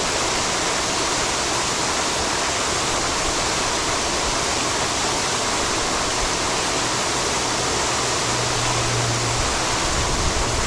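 Fountain water jets splashing steadily into the basin: an even, unbroken rush of falling water.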